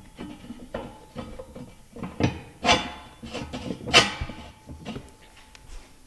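Steel-on-steel clanks and knocks, each with a short metallic ring, as a long steel pin is worked through a welded steel slew pivot and frame. The loudest come near the middle.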